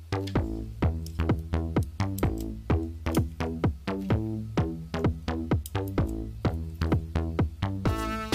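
Background music with a steady, quick beat of about three to four strikes a second and pitched notes; a fuller, denser part comes in near the end.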